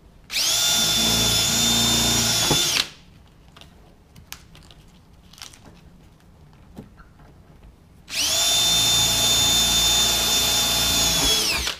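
Power drill running at a steady high whine twice, about two and a half seconds and then three and a half seconds, drilling two holes through the cover lifter's metal bracket; each run winds down in pitch as the trigger is released.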